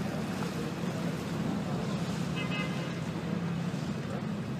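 Steady shoreline noise of wind and choppy sea water, under a constant low drone.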